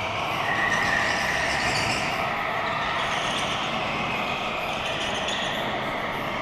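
Go-karts running laps on an indoor track: a steady mix of kart motor noise, with one higher whine standing out for the first couple of seconds as a kart passes close.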